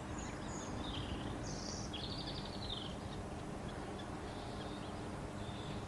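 Birds chirping: a few short high calls and a quick trill about two seconds in, over a steady low background hiss.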